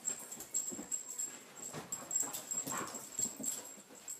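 Two dogs play-fighting, making short dog vocal noises in irregular bursts.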